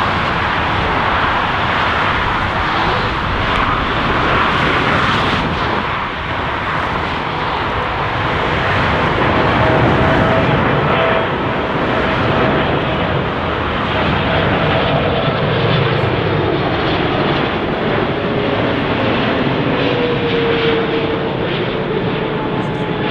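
Boeing 777 twin jet engines running loud and steady as the airliner passes, with a whine that slowly drops in pitch over the second half.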